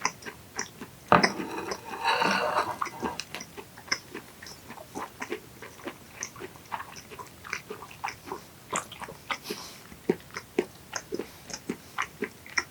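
Close-up chewing of raw yellowtail fin-meat sashimi, with many small wet mouth clicks. A louder knock comes about a second in, followed by a couple of seconds of louder noise.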